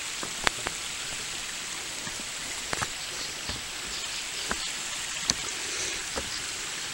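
Steady rushing of a creek and small waterfall, with a few scattered sharp taps of footsteps on the trail.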